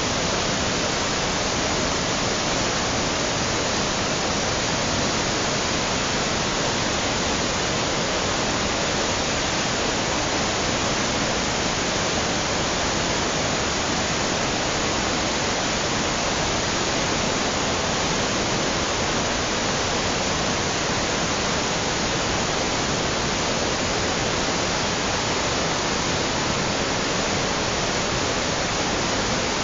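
The flood-swollen Pemigewasset River rushing through rocky rapids and over Livermore Falls: a loud, steady rush of whitewater that does not let up.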